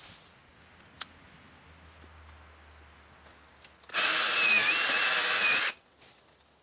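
Ryobi P517 18V brushless cordless reciprocating saw running in one short burst of under two seconds, a loud motor whine with blade noise, starting and stopping suddenly.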